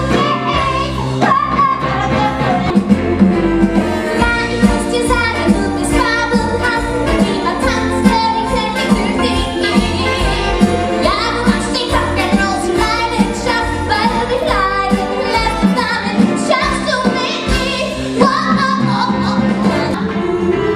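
Musical theatre song: female voices singing over a band accompaniment with a steady beat.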